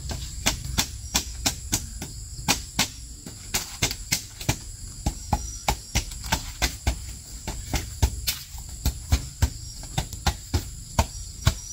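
Rapid, uneven sharp knocks, about three or four a second, from hand work on the bamboo-slat wall of a hut. A steady high buzz of crickets runs underneath.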